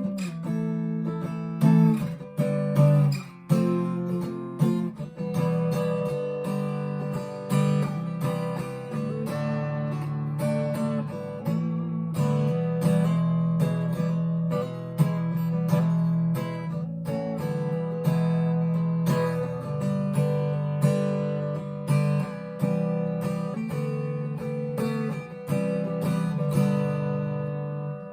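Harley Benton TE-90 FLT electric guitar strumming chords clean through a Fender Mustang LT25 amp, its controls at noon and the guitar's volume and tone fully up. A new chord every second or two; the last one rings out and fades near the end.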